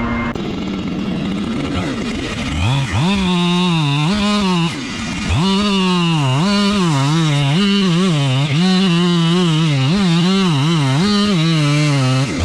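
A steady blower drone cuts off right at the start. A couple of seconds later a two-stroke chainsaw starts up and runs hard, its pitch repeatedly dipping and climbing back up about once a second as it is worked through a cut at the stump.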